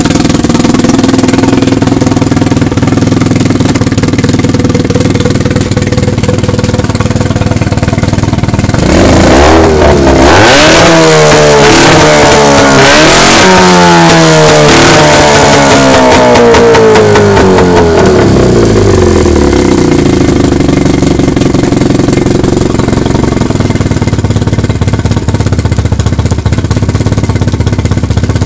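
Johnson 9.9 Seahorse two-stroke outboard motor running steadily, freshly adjusted and running smoothly. About nine seconds in it is revved up and down several times for around ten seconds, then settles back to a steady idle.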